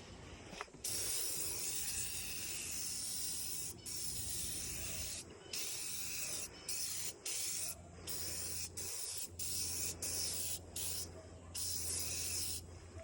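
Spraying hiss in a series of bursts, each stopping and starting abruptly, beginning about a second in, over a steady low hum.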